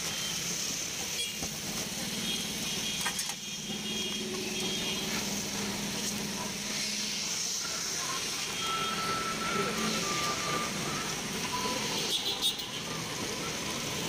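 Steady roadside street noise of passing traffic, with voices in the background and a few short knocks.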